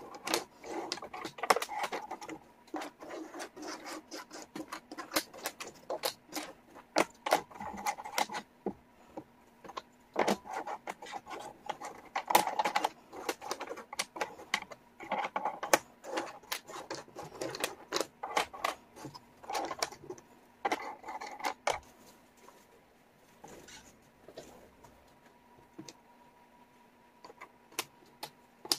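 Wooden jigsaw puzzle pieces clicking and clattering against each other and the table as hands sort and slide them around, with many quick irregular clicks and short rustling scrapes that thin out in the last few seconds.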